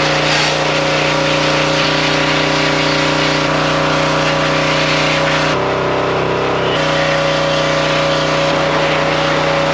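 Pressure washer running steadily, its motor humming under the loud hiss of the spray jet blasting water onto a string trimmer. About halfway through, the motor's note changes and the hiss thins for about a second, then both go back to as before.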